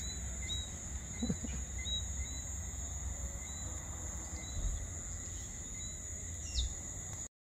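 Insects calling: a steady high-pitched trill, with short chirps repeating about twice a second, over a low rumble of wind on the microphone. It cuts off suddenly near the end.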